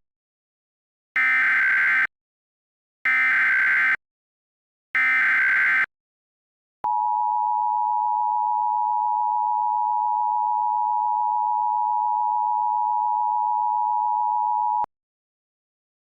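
Emergency Alert System SAME header: three one-second bursts of screechy digital data tones, then the EAS two-tone attention signal (853 and 960 Hz together) held steady for about eight seconds before it cuts off. Together they open an emergency alert, here a practice/demo one.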